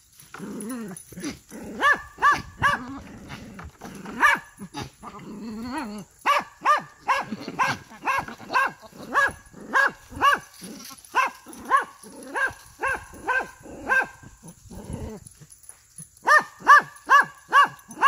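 An animal calling over and over in short, sharp calls, about two a second, with a short pause near the end before the calls start again. The first few seconds hold lower, rougher grunting sounds.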